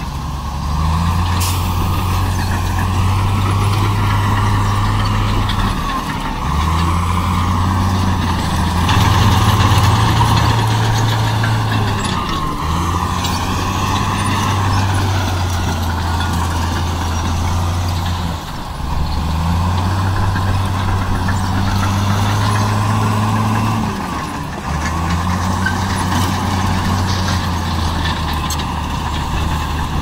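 Heavy diesel engine of earthmoving machinery, its low note stepping up under load and dropping back roughly every six seconds, with a steady high whine over it.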